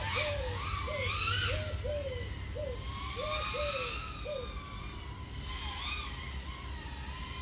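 iFlight AOS 3.5 V5 FPV quadcopter, XING 1504 3100KV motors spinning Gemfan propellers, flying at low throttle: a humming tone that slowly rises and falls in pitch over a low rumble. For the first four and a half seconds short repeated hooting notes, about two to three a second, sound along with it.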